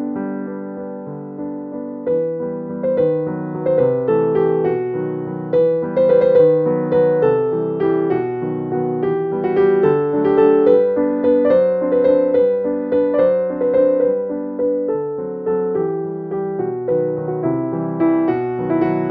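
Background piano music: a steady stream of struck notes in a gentle melody.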